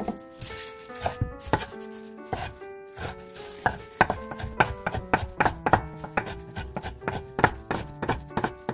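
Kitchen knife chopping kimchi on a wooden cutting board: a few separate chops at first, then quick chopping at several strokes a second from about three seconds in. Light background music plays underneath.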